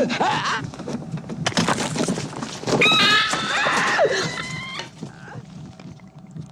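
Shrill, wavering shrieks amid clattering commotion as Kane convulses in the chestburster scene; the sound dies down near the end.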